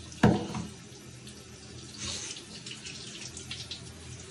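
Shower water running steadily into a bathtub, with one sharp knock about a quarter second in.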